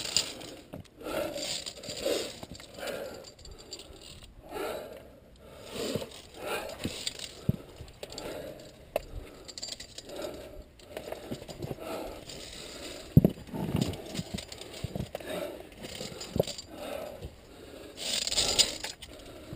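Climbing noise on a via ferrata: gloves and shoes scraping on limestone, and carabiners clicking and rattling against the steel safety cable, with the climber's heavy breathing between moves. A sharp clink or knock stands out about two thirds of the way through.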